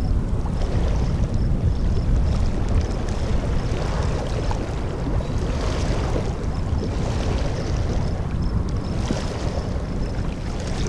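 Wind buffeting the microphone, a steady low rumble, with gusts swelling into a hiss every few seconds. A faint high chirp repeats evenly, a little over twice a second.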